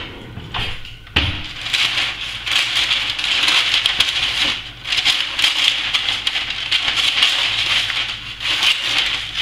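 Sheet of baking parchment paper being cut with scissors and handled: a continuous crinkling rustle with many small clicks, starting about a second in.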